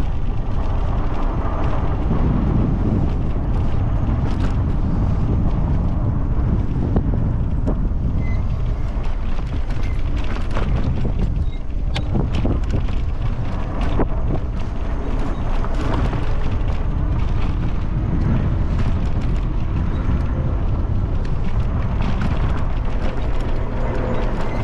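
HeyBike Mars electric bike riding over a rocky trail, heard through a handlebar-mounted camera: a steady rumble of tyres and frame vibration with many scattered rattles and knocks from rocks, a few sharper ones midway.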